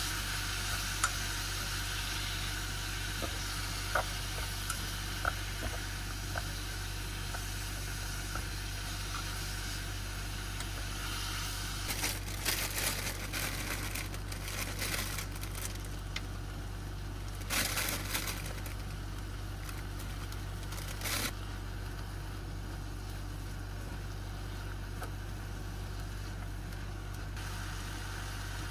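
A few light taps of cut cabbage pieces dropping into a pot, then, about halfway through, a plastic bag of bean sprouts crinkling and rustling in several bursts as the sprouts are shaken in. A steady low hum runs underneath.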